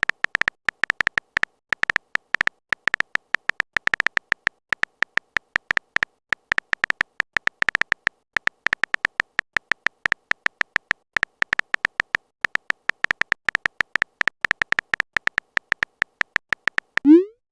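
Phone-keyboard typing sound effect: rapid, irregular clicks, several a second, each with a short high ring. Near the end comes a brief rising whoosh like a message being sent.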